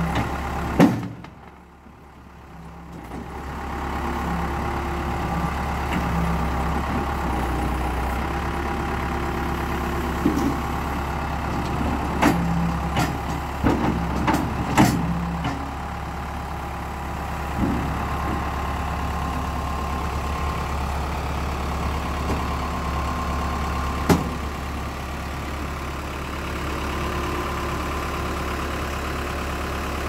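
Case 580 Super L backhoe loader's diesel engine running steadily while the loader arm and bucket are worked. The level dips briefly about a second in, and several sharp knocks sound in the middle, with one more later on.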